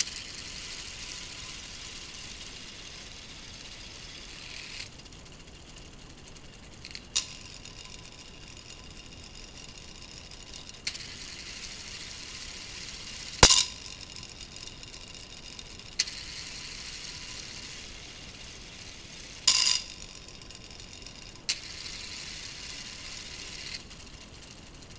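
Small solar motor running on a battery drives a K'Nex plastic two-speed gearbox, whirring steadily with a faint whine. Sharp clacks of plastic gears crashing come several times as the box is shifted between gears, the loudest about halfway through.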